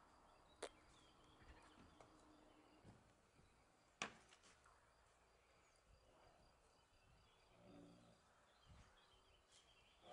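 Near silence: faint outdoor ambience, broken by two sharp clicks, one about half a second in and a louder one about four seconds in.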